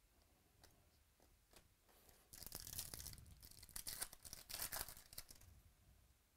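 Crinkling and tearing of thin plastic or paper handled close to the microphone. It starts about two seconds in and lasts about three seconds as a dense crackle of small sharp clicks, with a few faint ticks before it.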